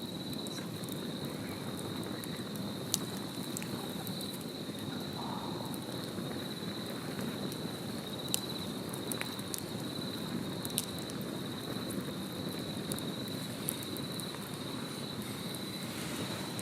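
Wood fire burning with a steady low rush and a few sharp crackling pops, over a steady high insect trill.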